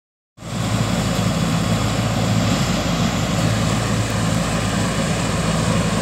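Mini combine harvester running steadily in the field while cutting a standing grain crop: an even engine drone under a broad mechanical hiss from the working machinery.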